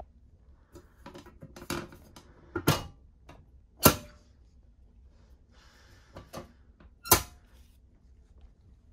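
Hinged sheet-metal lid of a wall-mounted litter bin being flipped open and let fall shut by hand: a series of sharp clacks and knocks, the loudest about four seconds in and again about seven seconds in.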